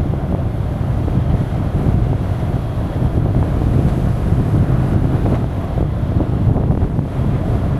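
Wind buffeting the microphone of a moving camera: a steady low rush with no clear engine note or other distinct sound above it.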